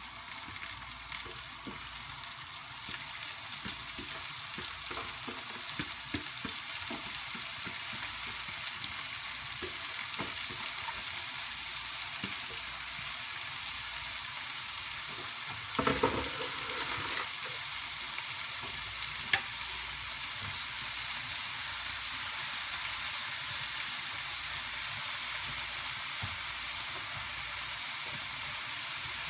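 Chopped leafy greens sizzling steadily in a frying pan on a gas burner, with light knocks from stirring. About halfway there is a brief louder clatter, and a sharp click follows a few seconds later.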